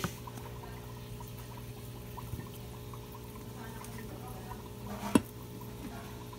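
Aquarium air pump humming steadily, with water trickling and bubbling in the tank. A short click right at the start and a sharp, louder knock about five seconds in.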